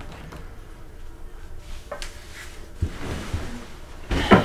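A person crossing to a metal-framed hospital bed and lying down on it: a few soft thumps and rustling, then a louder thump near the end as he settles onto the bed.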